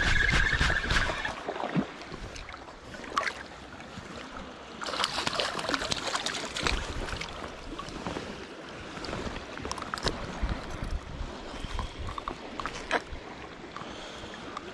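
Lake water lapping and sloshing at the shoreline, with scattered clicks and rustles from handling a freshly caught fish and fishing tackle. A short steady high tone sounds in the first second.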